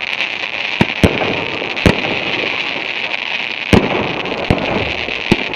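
Fireworks display: about six sharp bangs of bursting shells at uneven intervals over a continuous hiss.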